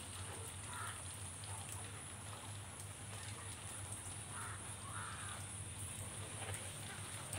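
A few short bird calls, one about a second in and two close together around four and a half to five seconds, over a steady high hiss and low hum.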